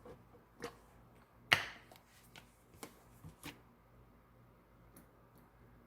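Scattered sharp clicks and taps from handling a small bottle of vanilla extract, opening it and tipping in a few drops. The loudest tap is about a second and a half in, with a few more around the middle.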